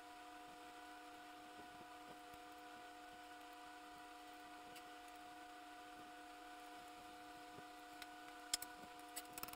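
Near silence: room tone with a faint steady hum and a couple of faint clicks near the end.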